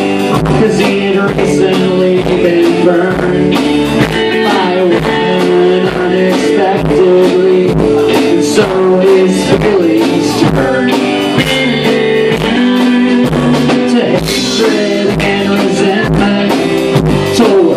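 Live rock band playing: electric guitars over a drum kit, amplified.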